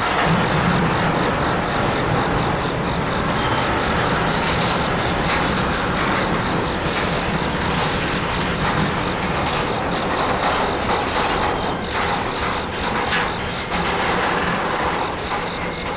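Westbound intermodal freight train rolling past with a steady rumble and wheel clatter on the rails. From about eleven seconds in, a faint high squeal of wheels and brakes comes in as the train slows for its stop.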